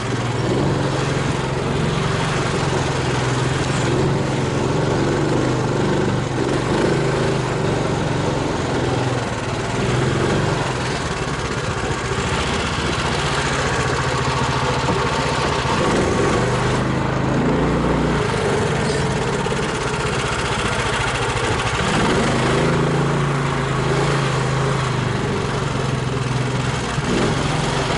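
Engine of a homemade all-terrain vehicle on low-pressure tyres running steadily, with small waverings in its tone.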